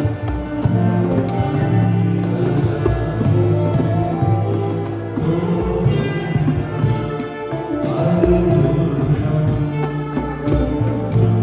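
Devotional kirtan music: a harmonium holding sustained chords, with a steady beat of cajón drums played by hand.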